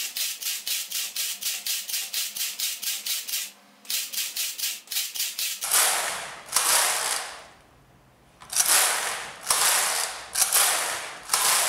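Passap double-bed knitting machine carriage being pushed across the needle beds to knit rows. First comes a fast, even clicking of about seven clicks a second with a short break, then about five sliding, hissing passes of about a second each.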